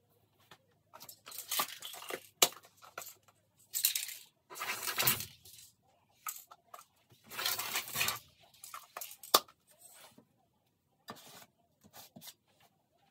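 Gold paint being laid onto a stretched canvas in long strokes: a series of irregular rubbing, scraping swipes of a second or so each, with a few sharp taps between them.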